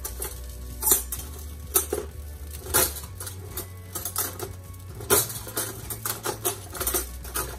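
Irregular clinks and knocks of kitchen dishes and utensils being handled, about one or two sharp strikes a second.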